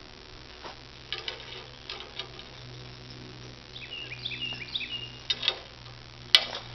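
Scattered clicks and knocks from work on the sprayer booms, the sharpest near the end, over a steady low hum. A bird chirps a quick series of short, falling notes in the middle.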